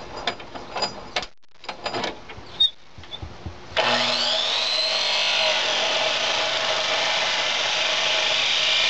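A few handling clicks and knocks, then about four seconds in a chop saw starts abruptly, its motor whine rising as it spins up, and runs steadily as it is brought down to cut through a metal air-rifle tube.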